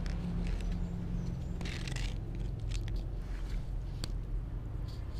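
A domestic cat eating cooked rice from a plastic tub right at the microphone: scattered short clicks and smacks of chewing and licking, with a brief rustle about two seconds in, over a steady low rumble.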